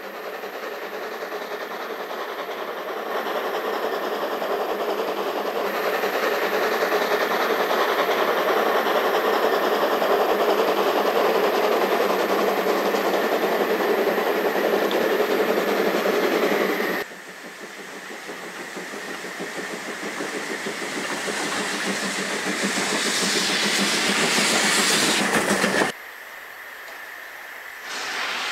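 Narrow-gauge steam locomotive working a train, its exhaust and running noise growing louder as it approaches. The sound breaks off abruptly twice, and a quieter stretch comes near the end.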